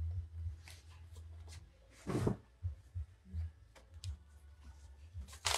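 Items being handled in a cardboard pallet box: scattered soft knocks and rustles, then a short sharp cardboard scrape near the end as a boxed item is pulled out.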